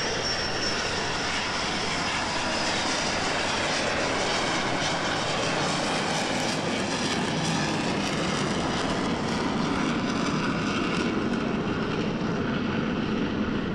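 A-4B Skyhawk's single Wright J65 turbojet passing low with gear and tailhook down, then climbing away: a steady, loud jet noise. A thin high whine fades out in the first second, and the sound grows deeper in the second half.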